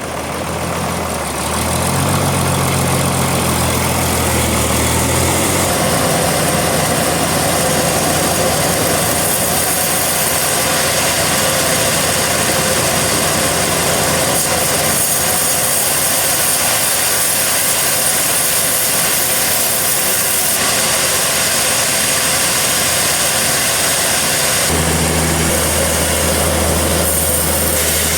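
Portable sawmill's engine running steadily, its note shifting a few times.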